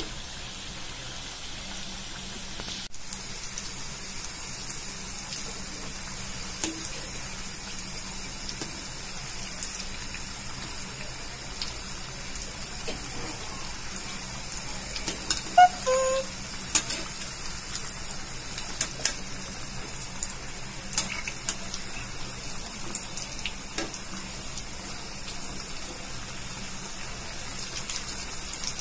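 Samosas deep-frying in oil in a kadai on moderate heat: steady sizzling with scattered pops and crackles. About halfway through comes a brief cluster of louder knocks as a wire-mesh skimmer turns them against the pan.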